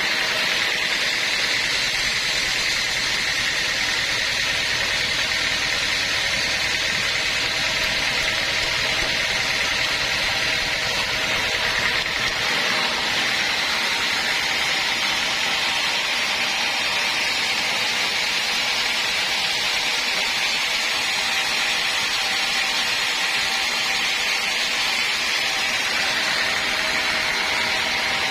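Sawmill machinery running steadily, a continuous machine noise with a steady high whine.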